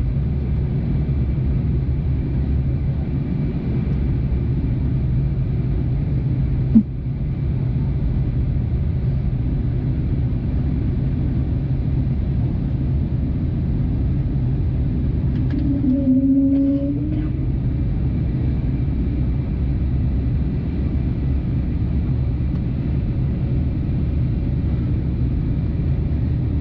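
Steady drone of an Airbus A320neo cabin in flight, engine and airflow noise heard from a window seat. A sharp click about seven seconds in and a short rising tone around sixteen seconds in.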